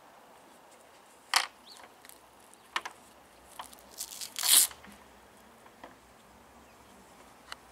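Hook-and-loop (Velcro) strap on an FCS surf leash being pulled apart and worked: a sharp rip about a second in, a few small ticks and rustles, then a louder, longer rip past the middle.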